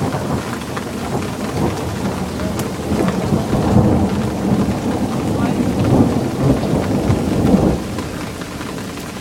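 Heavy rain pouring steadily, with a long rumble of thunder that builds from about three seconds in and fades near the end.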